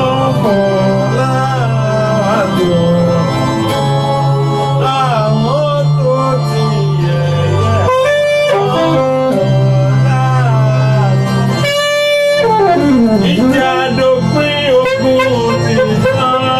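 Music: a wavering, sliding lead melody over long steady bass notes, with one long falling glide about two-thirds of the way through.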